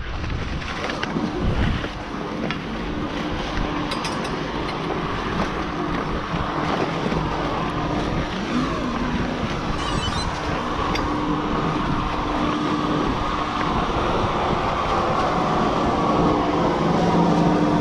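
Chairlift station machinery running with a steady hum, mixed with skis scraping and sliding over packed snow as the skier comes into the loading area. A few short clicks sound partway through.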